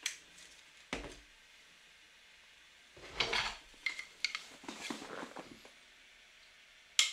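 Scattered sharp clicks, and from about three seconds in a stretch of light clattering and rubbing of small hard objects being handled.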